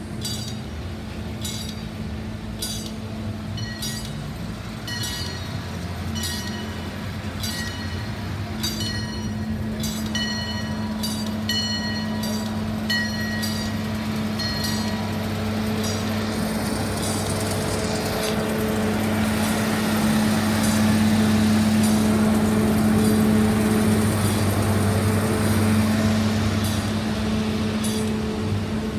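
A railroad crossing bell dings steadily, a bit more than once a second, as an amusement-park steam-style locomotive and its passenger cars approach and pass. A steady engine hum and the rumble of the train grow louder through the middle and ease off near the end, partly covering the bell.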